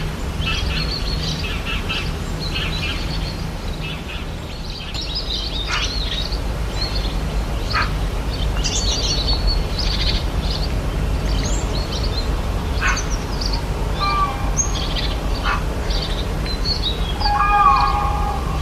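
Many rainforest birds chirping and calling, with short overlapping calls throughout over a steady low rumble. A few clearer whistled notes stand out in the last few seconds.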